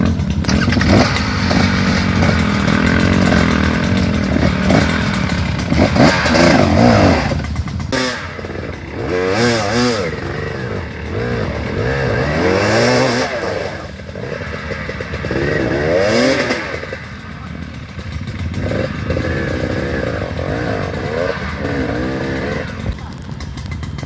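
Off-road dirt bike engines revving up and down again and again under load on a steep dirt climb, sometimes more than one at once, with the loudest revs near the middle.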